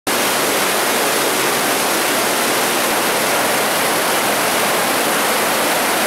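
Turbulent water of an underground stream rushing steadily down a concrete sewer collector: a loud, unbroken rush.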